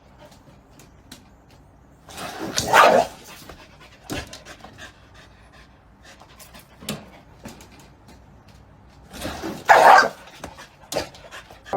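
A dog panting, with two loud breathy bursts about two and a half and ten seconds in and light clicks and taps between.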